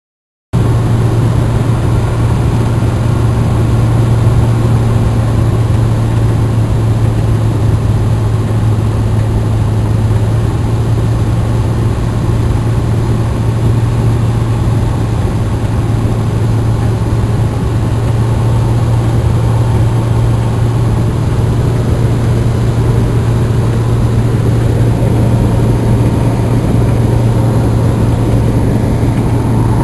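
Socata TB20 Trinidad's six-cylinder Lycoming piston engine and propeller droning steadily, heard from inside the cabin in flight, with a deep, even hum under a wash of engine and air noise. It cuts in abruptly about half a second in.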